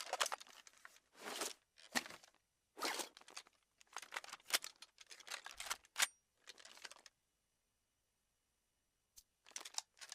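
A series of short, quiet crackling and rustling noises, each under a second long, with irregular gaps and a pause of about two seconds before a last few near the end.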